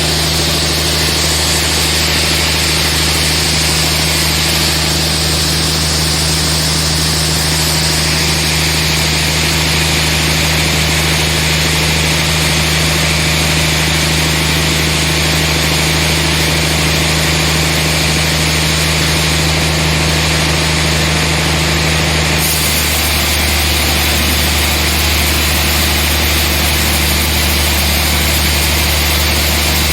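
Sawmill machinery running steadily while sawing trembesi (rain tree) logs: a constant low engine hum under a broad hiss of saw noise. The sound shifts abruptly about three-quarters of the way through.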